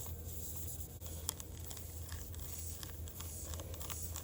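Faint scraping and scattered clicks of a tire-plug reaming tool being forced down into the hole in a truck tire's tread, over a steady low hum.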